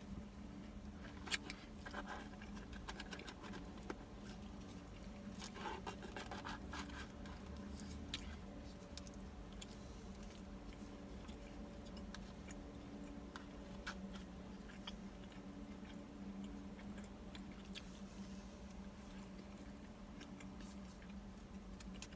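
Close-up eating sounds: chewing with soft crunches, clicks and scrapes scattered throughout, over a steady low hum.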